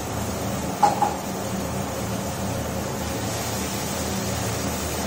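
Steady mechanical hum and hiss. About a second in, two quick metallic clinks of a spatula knocking against a steel cooking pan.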